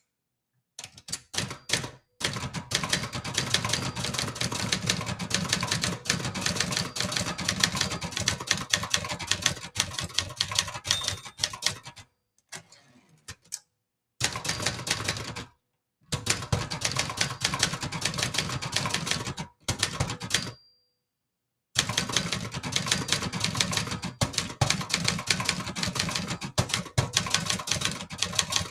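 Brother Charger 11 manual portable typewriter being typed on quickly: a rapid, dense stream of key strikes and typebar clacks against the platen. Two short breaks of one to two seconds fall about midway and about two-thirds of the way through.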